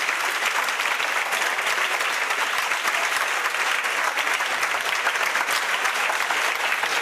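A classroom audience of students clapping steadily, applause congratulating a classmate on her selection as a teacher.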